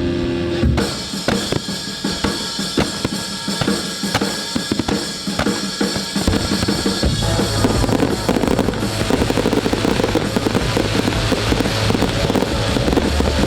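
Music with a loud drum kit beat of bass drum and snare. About seven seconds in, a steady deep bass line joins.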